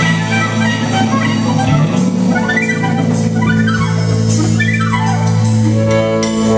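Blues harmonica played into a microphone, with bent notes and a quick falling run about four seconds in, over a live blues band's drums and guitar.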